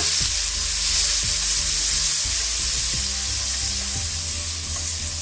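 Tomatoes and green chillies sizzling as they fry in hot oil with browned onions in an aluminium pot, with a steady high hiss. A slotted metal spoon stirring and scraping the pot a few times.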